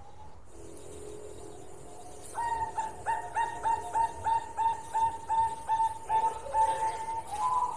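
Zebra dove (perkutut) singing: a quick, even run of short cooing notes, about three a second, starting a couple of seconds in and closing with a longer note near the end.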